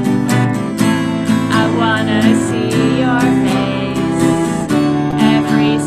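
Acoustic guitar strummed in a steady rhythm, with a cello holding sustained low notes underneath: a live song performance.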